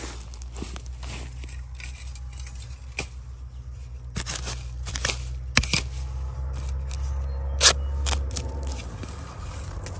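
A heavy blade chopping and scraping at the base of a wild bamboo shoot in dry bamboo litter, a series of sharp strikes among crackling leaves. One hard chop a little before the end is the loudest.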